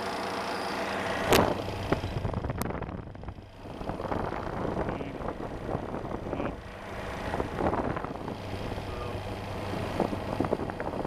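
Condenser fan motor of a Kelvinator ice cream case running with its blade spinning, a steady hum, with a sharp click about a second in and irregular rattling from about four seconds on. The motor is pushing a blade that the owner judges has too much pitch for it to last.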